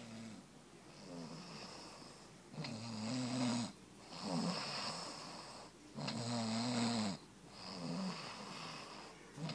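Snoring: rhythmic pitched, rattling snores alternating with softer breaths about every second and a half, louder from a couple of seconds in.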